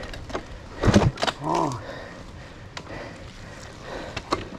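A sharp knock about a second in, followed by a short groan from a person that rises and falls, then scattered light clicks and scrapes. No engine is running.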